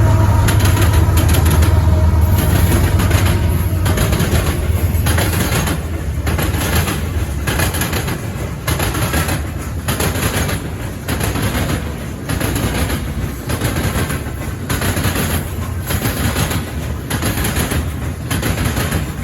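Eastbound CN potash train's loaded cars rolling past, steel wheels clacking in a steady rhythm on the track. The low rumble of the lead locomotives fades out over the first few seconds.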